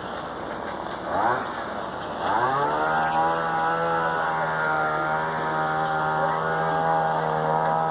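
An engine revving briefly, then climbing in pitch and settling into a steady run at constant speed.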